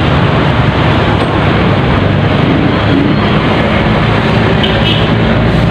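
Motorcycle engine running at a steady cruising speed, with a loud rush of wind on the microphone.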